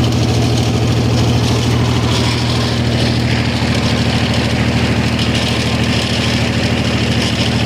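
Mahindra diesel generator running steadily with a fast, even engine pulse. A higher hiss joins about two seconds in.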